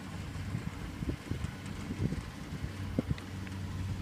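Wind buffeting the microphone in uneven gusts, over the steady low drone of a combine harvester's engine working at a distance.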